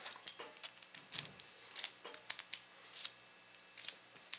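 Small metal clicks and taps from a small pin cam lock and its parts being handled: a string of sharp, separate clicks, about one every half second or so.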